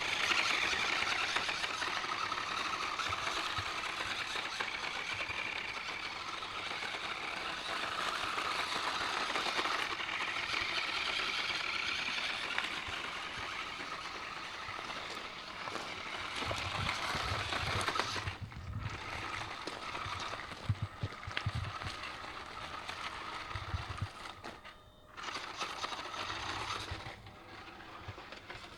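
Small electric RC truck (DEERC DE36W) driving, its motor and gears whining up and down in pitch with the throttle, with rattles and some low knocks in the second half.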